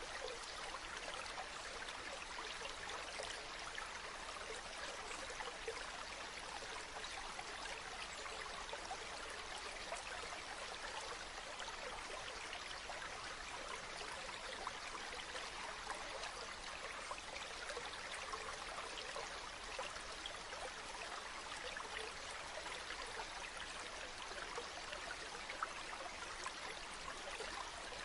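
Mountain river flowing over rocks, a steady babbling and bubbling rush of water.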